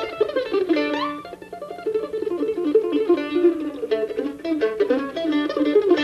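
F-style scroll-body mandolin played solo with picked quick single-note runs, one note sliding upward in pitch about a second in, and a softer passage shortly after.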